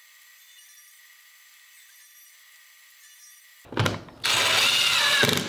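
A few seconds of faint hiss, then a drill boring a pocket hole through a pocket-hole jig: a short blip, then about a second of steady drilling with a whine that dips in pitch as the bit cuts.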